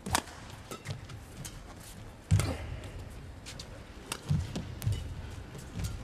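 Badminton rally: rackets striking the shuttlecock with sharp cracks, the loudest about two seconds in, while the players' feet thud on the court.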